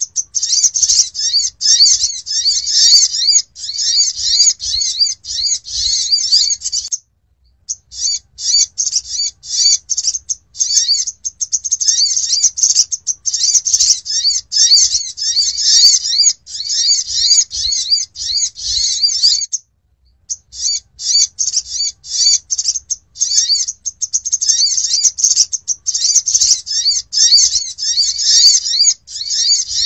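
Olive-backed sunbird (sogok ontong) calls played as a lure recording: rapid, dense, high-pitched chirping in long unbroken runs, breaking off briefly about seven seconds in and again near twenty seconds.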